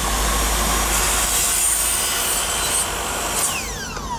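Electric miter saw cutting a 45-degree miter through two nested PVC V-profile corner trims, with steady motor and cutting noise. About three and a half seconds in, the saw is switched off and the blade spins down with a falling whine.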